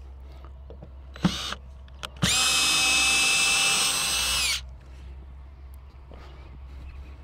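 Cordless drill running: a short spin about a second in, then a steady run of about two seconds that winds down as the trigger is let go, backing out a screw.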